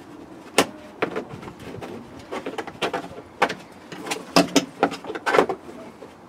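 Hard plastic interior trim clacking and knocking as a long sill trim piece is handled and pushed into place against the car's floor and body. The knocks are irregular and come thickest in the second half.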